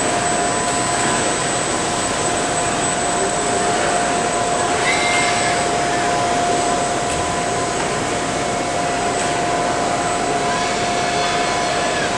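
Steady, loud machinery noise of an industrial trade-show floor with a constant hum tone, and two brief high whines, one about five seconds in and one near the end.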